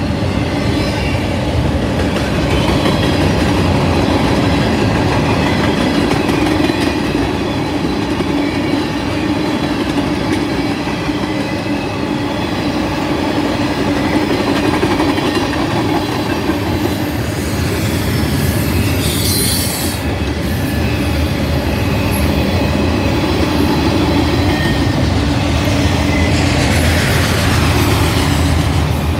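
A freight train's autorack and tank cars rolling past at steady speed, with the continuous noise and clatter of steel wheels on rail.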